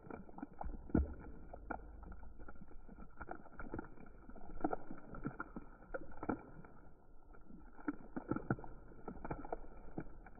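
Grey slime being kneaded, folded and stretched by hand, giving irregular small sticky pops and clicks.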